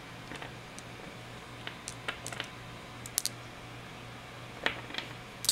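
Small dice clicking as they are picked up one by one from a scattered roll on a gaming table, a sparse run of light, irregular clicks over a steady low hum.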